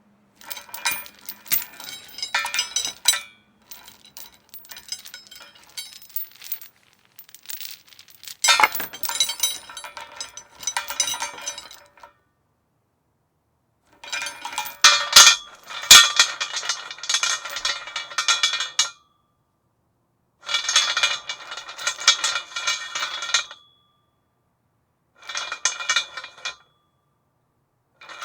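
A metal chain rattling and clinking against a metal post, with a metallic ring, in about six separate bursts of a few seconds each, with short silences between them.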